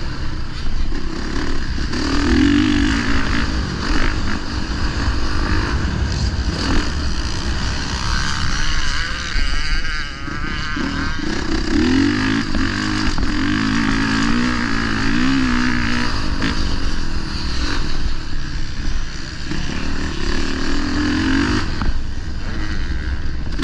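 Honda dirt bike engine running hard on a motocross track, its pitch rising and falling again and again with the throttle over a steady low rumble.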